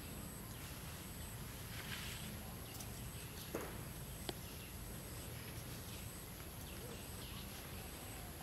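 Outdoor ambience: a steady high-pitched whine and scattered faint chirps over a low background hiss. Two sharp clicks come about three and a half and four and a half seconds in.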